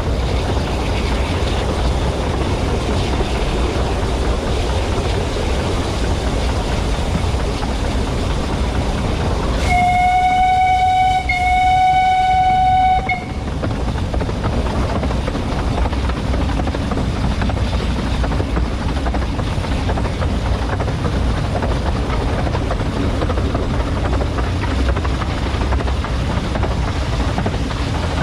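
Narrow-gauge steam train running with a steady rumble. About ten seconds in, the locomotive's steam whistle sounds one clear note for about three and a half seconds, in two blasts run almost together.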